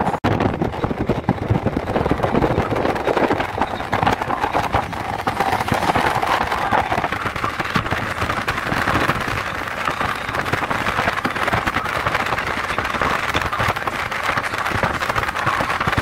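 Wind buffeting the microphone and road noise from a car moving with its window open: a steady, crackling rush.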